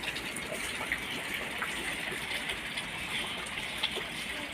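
Meltwater from snow thawing on a roof running and dripping down in a steady trickle, with scattered drops splashing.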